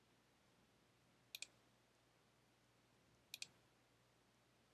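Two computer mouse clicks about two seconds apart, each a quick press-and-release pair of sharp ticks, against near silence.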